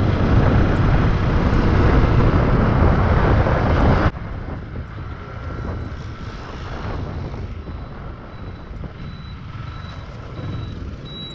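Motorcycle ride: loud wind rush on the microphone over the running engine. About four seconds in it cuts suddenly to a quieter ride at low speed through traffic, with a faint on-and-off high beeping near the end.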